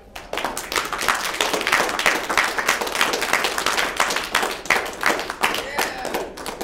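Audience applauding, many hands clapping at once; the applause breaks out suddenly just after the start.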